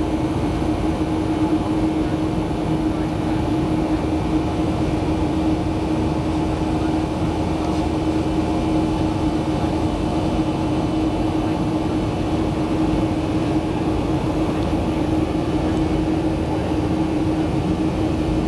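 Steady drone of a Boeing 737's CFM56 turbofan engines heard from inside the passenger cabin while climbing, an even rushing noise with a constant low hum running through it.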